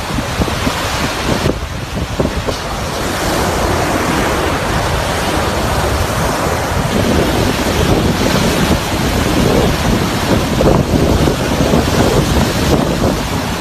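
Rough sea surf breaking and washing onto a sandy beach, with strong wind blowing on the microphone.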